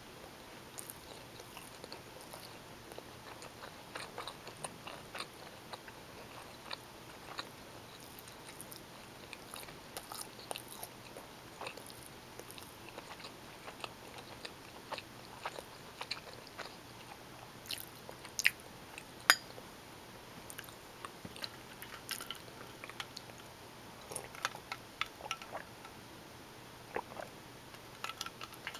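Close-miked chewing of bowtie pasta in tomato sauce with spicy Italian sausage: a steady run of small mouth clicks and bites, with two louder clicks about two-thirds of the way through.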